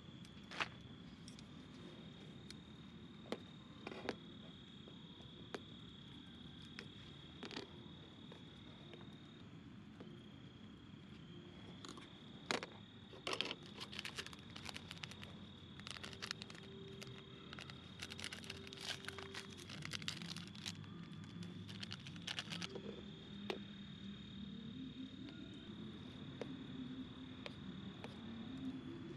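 A steady high insect trill of night crickets runs through, breaking off a few times. In the middle a plastic seasoning sachet crinkles and tears as it is opened. Near the end chopsticks stir and scrape noodles in a metal mess tin.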